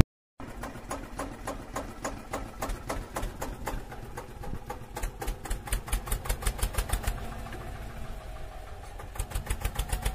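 Tractor engine chugging in an even rhythm of several beats a second, starting just after a short silence, fading a little about eight seconds in, then coming back steady near the end.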